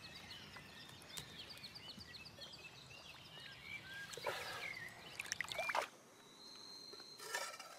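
Small splashes and trickling water as an eel is let go by hand into a river, with birds chirping. About six seconds in, this gives way to a quieter scene with a steady high tone.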